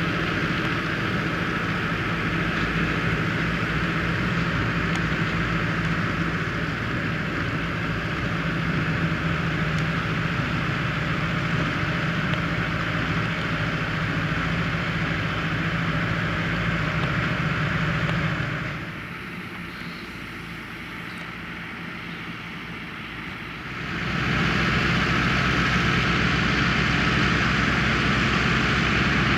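Valtra tractor and Grimme potato harvester running steadily, the engine's hum under a constant clatter and rush of the harvester's machinery. The sound drops much quieter for about five seconds about two-thirds through, then comes back at full level.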